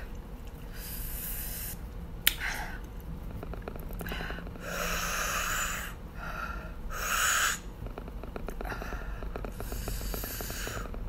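A woman's breathy, voiceless vocal sounds: several huffs or whispers, each up to a second or so long, with no clear voiced words. A sharp click comes a little over two seconds in.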